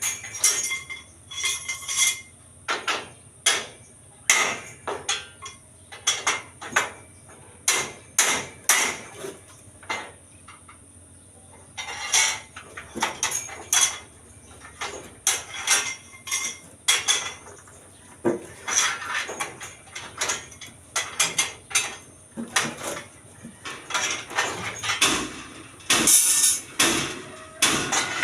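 Steel reinforcing bars knocking and clinking against each other and against metal tools in an irregular string of sharp strikes, as rebar is worked into column stirrups, with a short pause in the middle.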